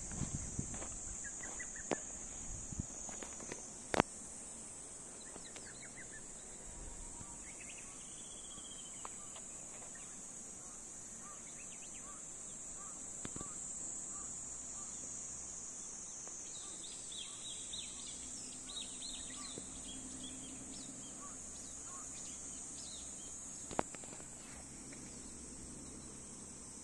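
A steady high-pitched chorus of insects, with a few short bird chirps in the middle and scattered sharp clicks, the loudest about four seconds in and another near the end.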